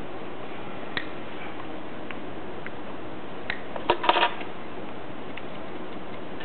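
Scattered light clicks of small tools and electronic parts being handled on a workbench, with a short clatter of several quick clicks about four seconds in, over a steady background hiss.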